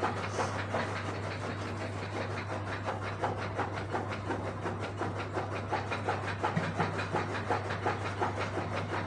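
A machine running steadily: a constant low hum with a fast, even clatter.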